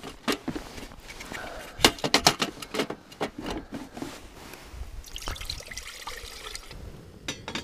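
Knocks and clicks of a portable gas camping stove being set down and its grate fitted, then water pouring from a large plastic bottle into a pot for a couple of seconds about five seconds in.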